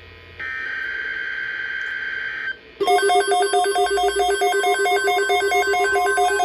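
Emergency Alert System data burst, a steady two-tone digital warble, from about half a second in until about two and a half seconds. Then, about three seconds in, a loud electronic alert signal starts: a repeating pattern of beeping notes over a held lower note, marking the start of an incoming tornado watch alert.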